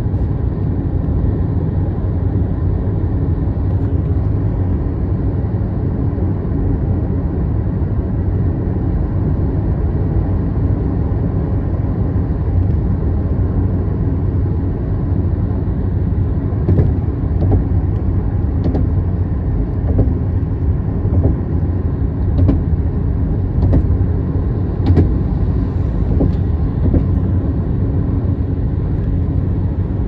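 Steady low road and engine rumble of a moving car, heard from inside the car, with a few faint ticks in the second half.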